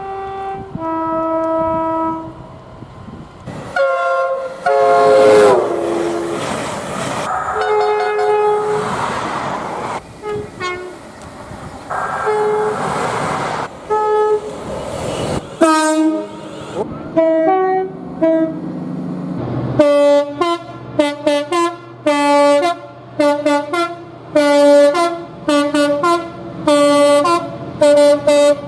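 Train horns sounding in a string of separate blasts with abrupt cuts between them: several long chords, one sliding down in pitch about five seconds in, then from about twenty seconds on a fast run of short blasts, about two a second.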